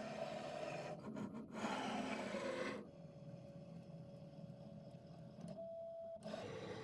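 Makera Carvera desktop CNC mill running its automatic tool change to the 3.175 mm single-flute spiral bit, its motors moving the spindle head. Uneven mechanical running noise gives way about three seconds in to a steady whine, which steps up to a higher pitch shortly before the end.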